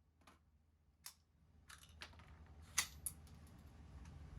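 About five light, sharp clicks at uneven intervals, the loudest just under three seconds in, from gear being handled at the shooting bench, over a low steady rumble.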